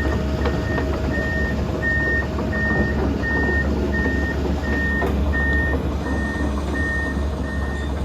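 Komatsu PC210-10 hydraulic excavator's travel alarm beeping at an even pace, about three beeps every two seconds, over the steady running of its diesel engine.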